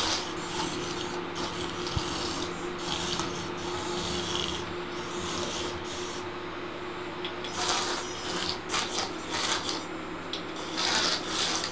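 Several small wheeled robots driving about, their little drive motors whirring with a steady hum, mixed with irregular scratchy, rattling bursts as they move across the floor.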